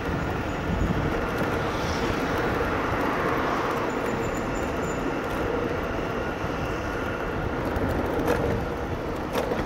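Steady road-vehicle noise with a faint hum, and two brief clicks about a second apart near the end.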